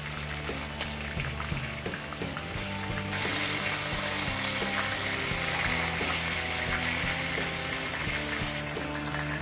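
Chicken pieces frying in butter in a pan, a steady sizzle that grows louder and brighter about three seconds in.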